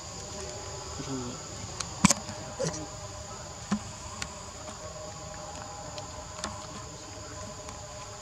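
Steady high-pitched insect drone, with a few sharp clicks scattered through it, the loudest about two seconds in.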